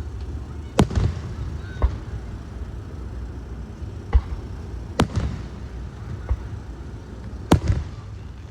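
Fireworks show shells bursting: three sharp loud bangs, about a second, five seconds and seven and a half seconds in, with several duller thuds between them, over a steady low rumble.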